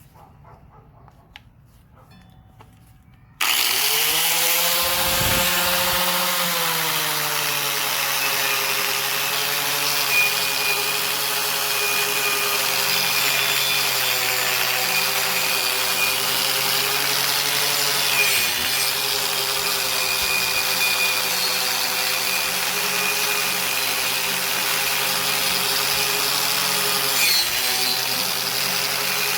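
A handheld electric power tool starts suddenly about three seconds in, winds up to speed and runs steadily while cleaning the rust off a steel leaf-spring leaf, its pitch dipping briefly twice as it is pressed into the work.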